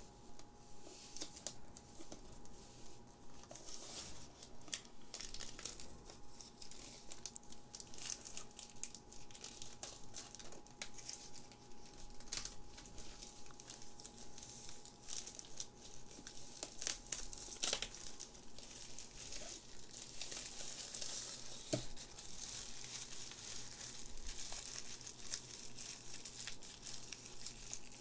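Plastic shrink wrap crinkling and tearing as it is peeled off a cardboard trading-card box and crumpled in the hands: a dense run of small crackles, with a couple of sharper snaps about two-thirds of the way through.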